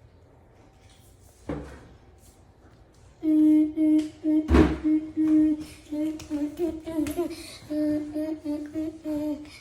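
A child humming a tune in held notes, starting about three seconds in and running on in short phrases. A knock comes about a second and a half in, and a louder thump about four and a half seconds in.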